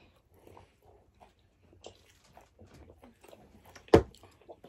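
Close-miked chewing and mouth sounds of people eating burgers: soft scattered wet clicks and smacks, with one short, sharp, much louder thump about four seconds in.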